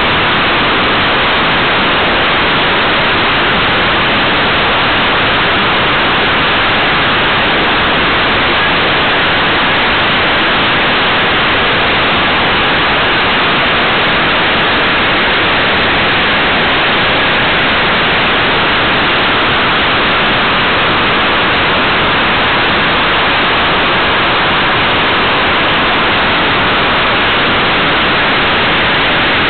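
Loud, unchanging hiss from a small camera riding on a flying model airplane: rushing air and microphone noise blended into one even wash, with no engine or propeller note standing out and no change as the plane banks.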